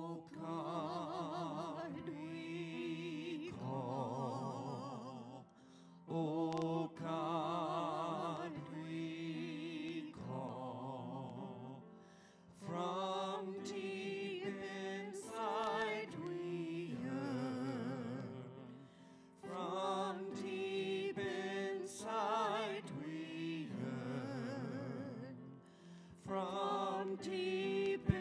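A man and a woman singing a slow hymn with vibrato, accompanied by grand piano, in sung phrases of a few seconds each with short breaks between.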